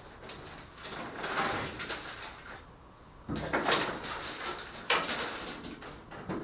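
Classic Mini body shell turning on a rotisserie, the frame and shell creaking as it rotates, with a heavy clunk about three seconds in and a sharp knock about five seconds in.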